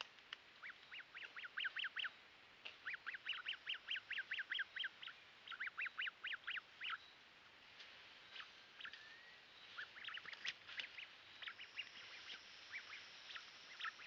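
Bird calls: three bursts of rapid, evenly repeated short high notes in the first seven seconds, then scattered fainter chirps and clicks. A thin steady high tone comes in past the middle.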